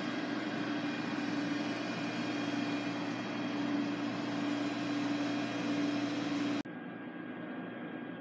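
Steady indoor machinery hum and hiss, with one low droning tone under it. It cuts off abruptly about six and a half seconds in, giving way to quieter room tone.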